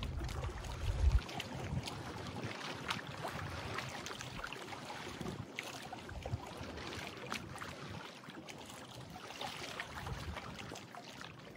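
Outdoor shoreline ambience: small waves lapping against rocks, with wind buffeting the microphone for about the first second and scattered faint clicks throughout.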